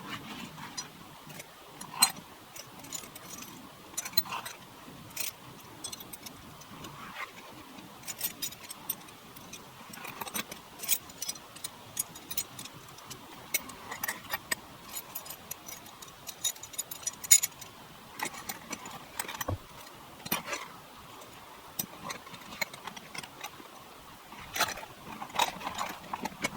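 Irregular light clicks and clinks of small hard objects being handled, over a faint steady background.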